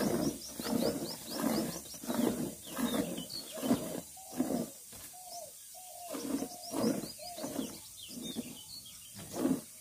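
Milk squirting in rhythmic streams into a steel pail as a cow is hand-milked, about one and a half squirts a second. Small birds chirp faintly above it.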